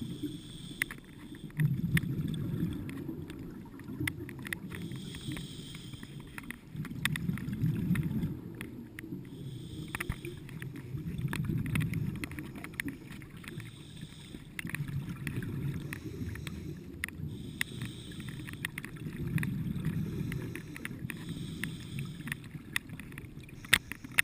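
Scuba diver breathing through a regulator underwater: a short hiss on each inhalation, then a low bubbling rumble of exhaled air, in a cycle of about four seconds, with scattered faint clicks.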